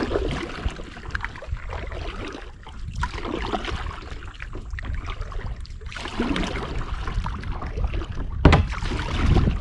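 Kayak paddle strokes swishing through the water, with wind rumbling on the microphone and a couple of sharper knocks near the end.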